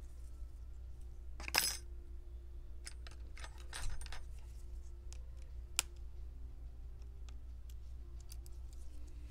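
Small hard clicks and taps from a Lenovo Yoga 710 laptop's display assembly being handled while its plastic hinge covers are worked loose. One louder snap comes about a second and a half in, then scattered lighter ticks.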